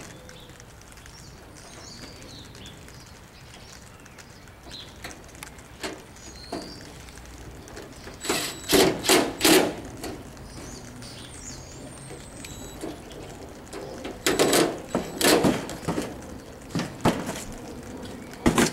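DeWalt 20V cordless drill run in short trigger pulls, driving the screws that fasten the plastic handle to the grill door: a cluster of quick bursts about halfway through and another a few seconds later. Faint bird chirps can be heard between them, and there is a knock near the end.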